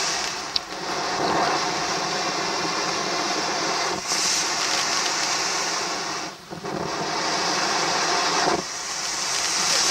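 Consumer fountain firework spraying sparks with a steady, loud hiss. The sound shifts about four seconds in and again around eight and a half seconds as the fountain changes effect, with a brief drop near six and a half seconds.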